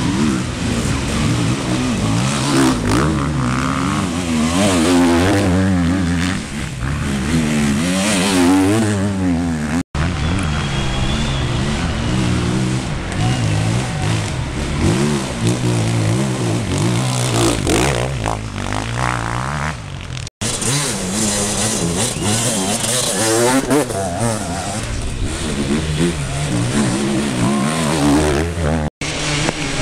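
Enduro motorcycle engines revving hard as riders pass one after another, the pitch rising and falling with the throttle and gear changes. The sound breaks off briefly three times.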